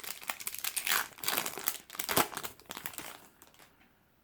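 Wrapper of a Yu-Gi-Oh! booster pack crinkling as it is handled and opened. The crackle is dense, with a sharper crackle a little past two seconds, and dies away after about three seconds.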